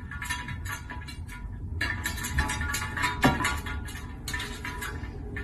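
A cat's paws patting and rubbing against a glass tabletop from underneath: an irregular run of light taps, with one louder knock a little past the middle.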